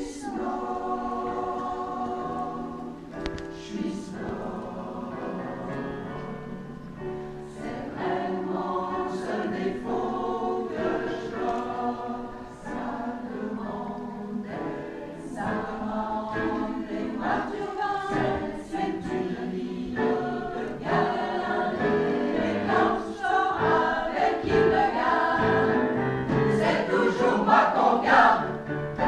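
A choir singing a song together, swelling to its loudest near the end.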